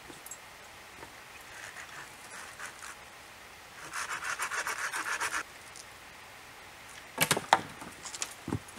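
Hand work on wooden poles. About four seconds in, a second and a half of rapid, evenly spaced rasping strokes, a small saw cutting through a pole. Near the end come several loud wooden knocks and clatters as poles are dropped.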